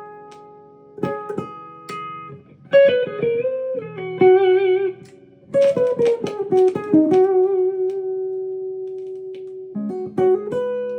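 Gibson Les Paul electric guitar with Bare Knuckle pickups playing a lead line: short phrases of picked single notes, one bent up in pitch, some with vibrato, and a long held note that slowly fades.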